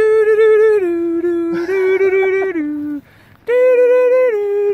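A melody of long held notes stepping up and down in pitch, with a short break about three seconds in.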